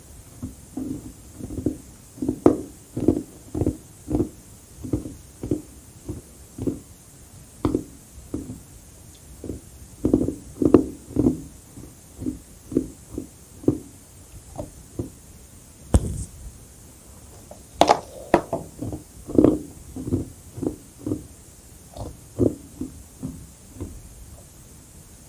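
Close-miked chewing of carbonated crushed ice: a run of crisp crunches at about two a second. The crunching pauses briefly past the middle, gives one sharp click, then resumes.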